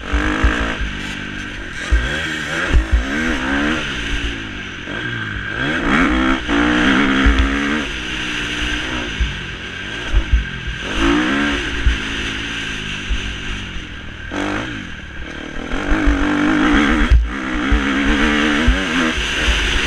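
Motocross bike engine revving up and down again and again as the throttle opens and closes, the pitch climbing and dropping every second or two. Wind buffeting and dull thumps on a helmet-mounted microphone run under it.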